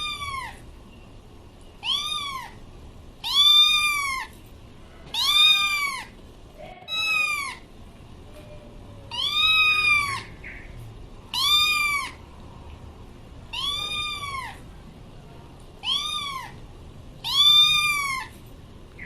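Pet cat meowing over and over, about ten meows, each rising and then falling in pitch, one every couple of seconds.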